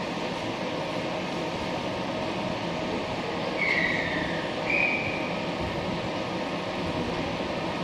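Kobe subway train running, a steady rumble, with two short high squeals about a second apart midway through.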